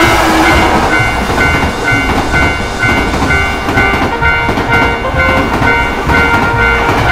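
Railroad crossing warning bell ringing in a steady, even pulse about twice a second, over the rumble of a passing train.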